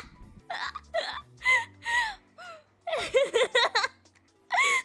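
A young woman's high-pitched, breathless laughter: a string of short squeaky laughs and gasps, with a quicker run of laughs about three seconds in.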